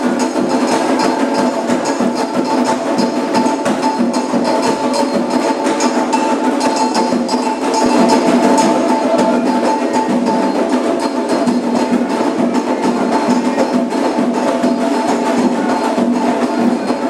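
Candomblé ritual music: drums and a struck wooden or bell-like percussion instrument played in a dense, steady rhythm, over held tones.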